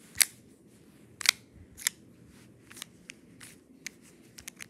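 Plastic fraction tiles pushed with a fingertip around a clear plastic tray, clicking as they slide and knock against each other: two sharp clicks in the first second and a half, then a run of lighter ticks.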